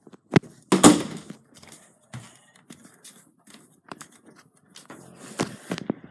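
Handling noise from the recording phone: scattered knocks and scraping rustles, loudest about a second in and again near the end.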